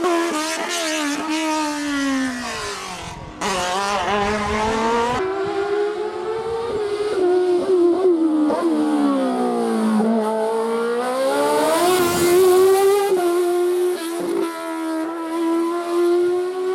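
Single-seater race car engine revving hard at high pitch. The revs drop and climb again several times, falling most deeply about two and ten seconds in and holding high near the end. The sound breaks off abruptly and restarts about three and a half seconds in.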